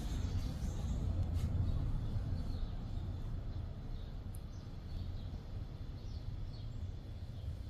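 Steady low rumble of background noise, with a few faint, short, high bird chirps in the second half.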